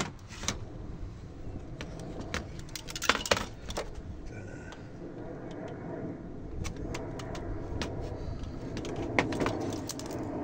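Metallic clicks and clinks of an LCD monitor's circuit board and sheet-metal frame being handled and worked apart by hand, with a cluster of sharper clinks about three seconds in, over a steady low background rumble.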